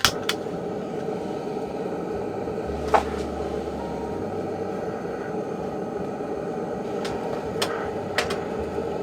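A steady rushing noise with a few sharp cracks and pops: a small camping wood stove burning damp firewood. Sharp cracks come right at the start, once about three seconds in, and three times near the end.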